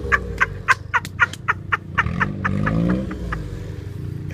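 A vehicle's engine working in deep mud, first with a quick run of short squeaks or chirps about five a second, then revving up and dropping back.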